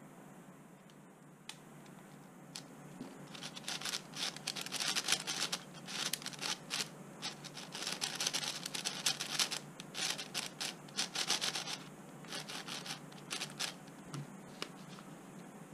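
Plastic layers of a MoYu WRM magnetic speed cube being turned quickly in the hands: a dense run of rapid scraping clicks from about three and a half seconds in to about twelve seconds, with quieter scattered clicks before and after.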